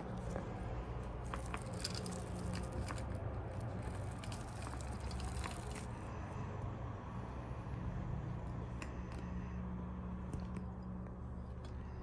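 Kittens moving about: clusters of light clicks and scratches over a steady low hum, busiest in the first half, then a few single clicks.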